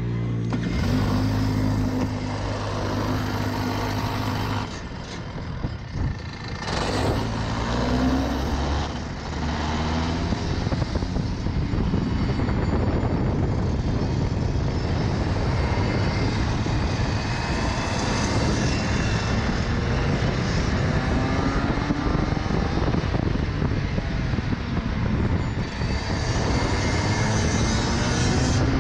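Racing kart engine idling with a steady low note at a standstill, then revving up about eight seconds in as the kart pulls away, running hard with its pitch rising and falling as the throttle opens and closes.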